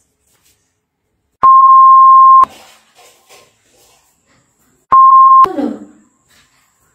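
Two loud steady 1 kHz beeps, a censor bleep tone: the first lasting about a second, the second about half a second and ending in a brief, lower falling sound.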